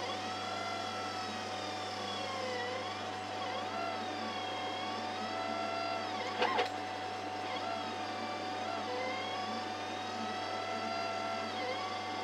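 Stepper motors of a 60 W CO2 laser cutter whining as the head traces curves while cutting acrylic, the pitch gliding up and down with the head's speed. Under it is a steady hum from the constantly blowing air assist, and there is a brief pair of clicks about six and a half seconds in.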